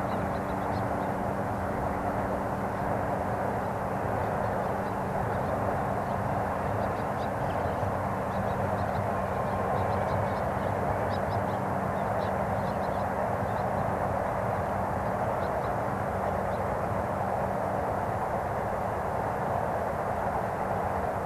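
Steady distant rumble of city traffic over open ground. A low droning hum fades out about halfway through, and faint short high chirps come and go in the middle.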